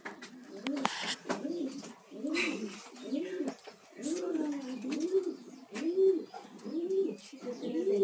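Jacobin pigeon cooing: a long, steady run of short coos, each rising and then falling, about three every two seconds, with light clicks scattered among them.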